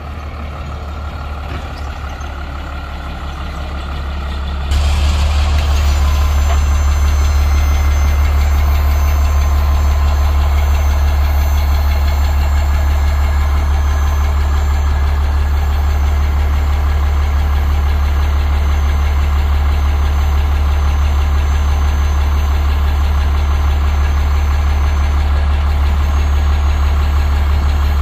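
1993 Ford F700's six-cylinder diesel engine running steadily. About five seconds in it abruptly gets louder and then holds steady.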